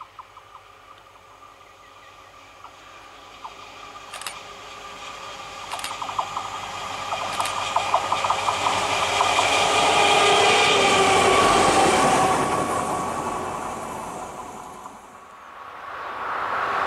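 A Vossloh Euro 4000 diesel locomotive running light approaches and passes. The sound of its engine and wheels grows louder to a peak about ten to twelve seconds in, with a few sharp clicks along the way, then fades. Near the end a new, louder rushing sound starts to rise.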